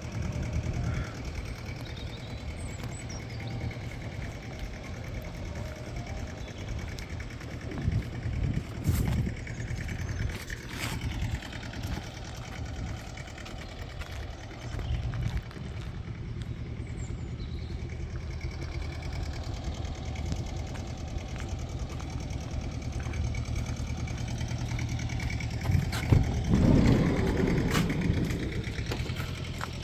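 A motor vehicle's engine running steadily at idle, growing louder for a while about eight seconds in and again near the end.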